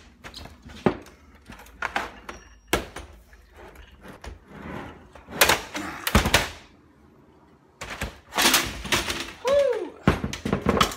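A run of knocks, clunks and clatter as a touchscreen computer's plastic casing and parts are pried, unscrewed and knocked apart, with a brief squeak about nine and a half seconds in.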